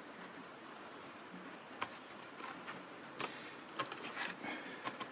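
Plastic blister packaging being cut open with a pocket knife: a sharp snap about two seconds in, then a run of crinkles and clicks as the plastic is worked apart.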